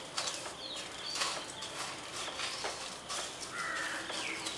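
Birds chirping in the background. Light, crackly rustling of dry bread crumbs and crushed cornflakes as a roll is pressed and turned in them on a plate.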